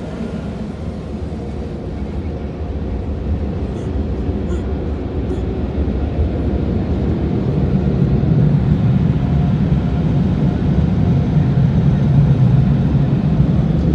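An automatic car wash working over the car, heard from inside the cabin: a steady rumble of water spray and machinery on the body and windows that grows steadily louder.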